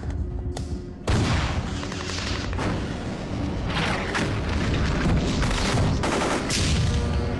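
Heavy gunfire with booms starts suddenly about a second in and keeps going, a film battle soundtrack with music under it.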